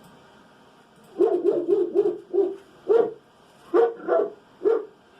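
A dog barking, about ten barks starting a second in: a quick run of barks, then single barks at intervals.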